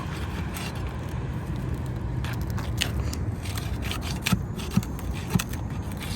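Roofing nails being pried out of asphalt shingles: about six separate sharp clicks and scrapes, over a steady low rumble.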